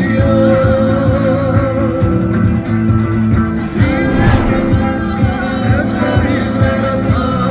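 Background music: a Georgian song with guitar and bass over a steady beat, with a wavering melody line on top.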